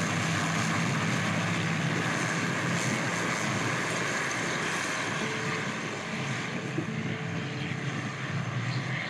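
Light piston-engine bush planes at takeoff power, a steady propeller-and-engine drone as they roll down a dirt strip and lift off, growing a little fainter in the second half as they climb away.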